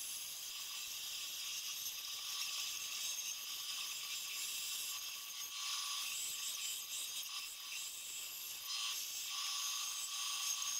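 Benchtop power saw running and cutting through plywood, a steady high whine with hiss and rattle that rises and dips slightly as the wood is fed along a curve.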